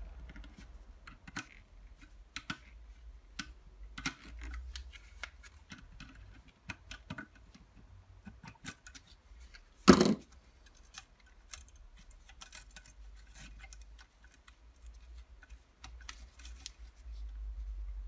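Small metallic clicks and scrapes from pliers and fingers working the carbon brush holders out of a vacuum cleaner's brushed motor, with one sharp knock about ten seconds in.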